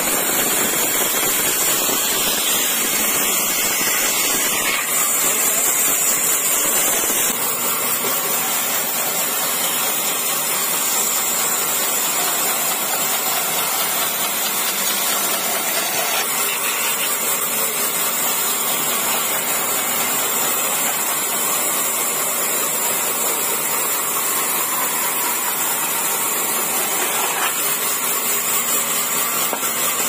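Vertical band saw cutting old pine planks: a steady, noisy rush of the blade running through the timber, with the saw running continuously.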